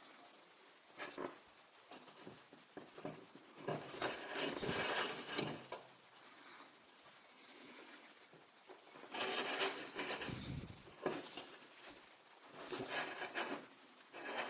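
Handling noise from a metal hurricane lantern being turned over and worked by hand: irregular rubbing and scraping with a few light clicks, in several short spells.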